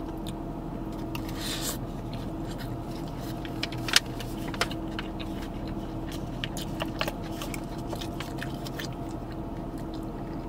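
Plastic takeout lid used as a spoon, scooping and scraping rice in a plastic bowl, with scattered clicks and crackles and one sharp click about four seconds in, then chewing. A steady low hum of the car cabin runs underneath.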